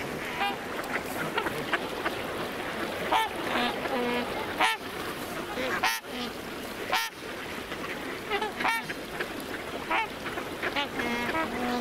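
A flock of waterfowl calling: many short, overlapping calls over a steady rushing noise, with a few sharp clicks in the middle.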